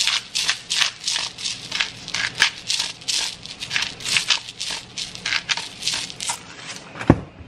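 Pepper mill grinding peppercorns over a pan of sauce, a steady run of crunchy grinding strokes about three a second, then one sharp knock near the end.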